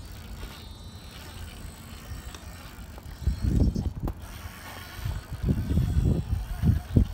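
Gmade Komodo RC crawler's electric motor and geared drivetrain whirring as the truck crawls over rock. Low rumbling buffeting on the microphone rises about three seconds in and again over the last two seconds, louder than the truck.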